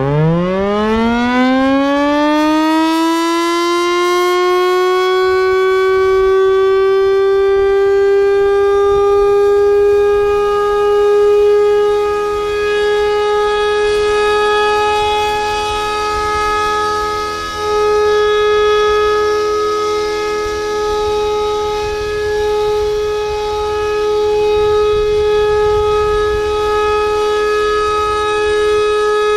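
Federal Signal Thunderbolt 1000 air raid siren winding up from a low growl to full pitch over the first few seconds, then holding a loud, steady wail with slight swells in loudness.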